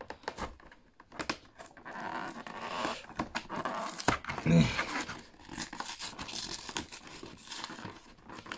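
Packaging of a Pokémon card collection box being torn and crinkled open, with many small clicks and rustles. A short vocal sound comes about halfway through.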